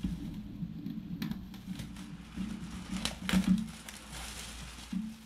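Clear plastic bag wrapped around a desk fan crinkling and rustling as it is handled, with a cluster of louder crackles about three seconds in.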